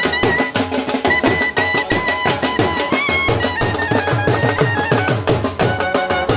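Indian wedding band playing live: a clarinet carries a held, wavering melody over a quick, steady beat from two marching drums and a dhol.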